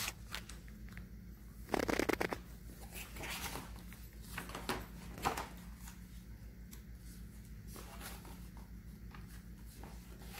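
Pages of a picture book being turned by hand, with a burst of paper rustling about two seconds in and a few lighter page sounds after it, over a low steady hum.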